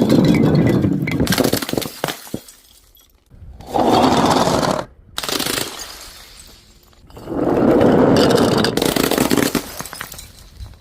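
Loud crunching and breaking: objects being crushed and broken, in three long crackling bursts with a shorter one between the second and third.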